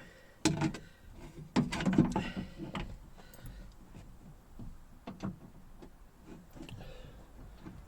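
Scattered knocks and clicks of hand tools and parts being worked inside a car door, while a rounded-off screw on the door lock mechanism is being forced. The loudest knocks fall about half a second and two seconds in, with lighter clicks later.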